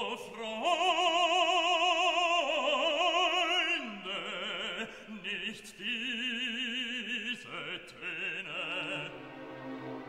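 Background music: a solo operatic voice holding long notes with a wide vibrato, stepping to a new pitch every second or two.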